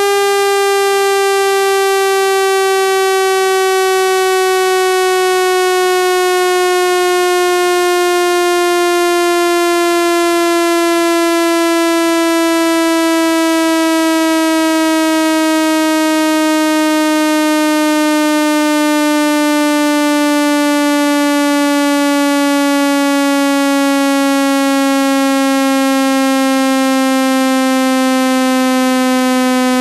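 Speaker-cleaning tone: a loud, buzzy electronic tone rich in overtones, its pitch gliding slowly and steadily downward.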